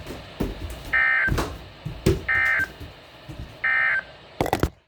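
NOAA Weather Radio SAME end-of-message data bursts through a Midland WR120 weather radio's speaker: three short, buzzy, evenly spaced bursts a little over a second apart, marking the end of the required weekly test. Low thumps sit under them and a few sharp clicks come near the end.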